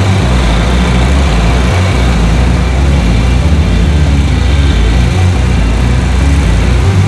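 Wright Stander stand-on commercial mower's engine running steadily as the mower creeps forward.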